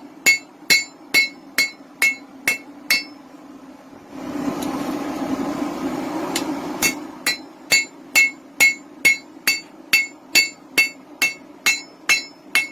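Hand hammer striking a hot railroad spike on an anvil in a steady rhythm of about two blows a second, each blow with a bright ring from the anvil. The hammering stops for a few seconds in the middle, when a steady rushing noise is heard, and then starts again.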